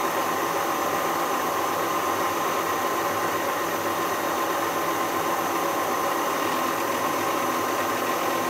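Schaublin SV52 milling machine running steadily: an even motor and gear hum with a clear, constant high whine.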